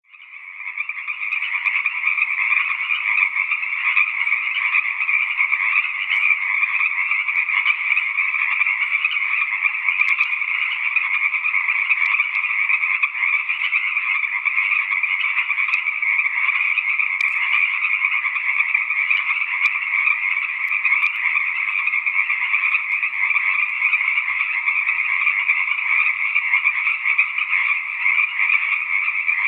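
A chorus of many frogs calling at once, dense and unbroken, fading in over the first second and then holding steady.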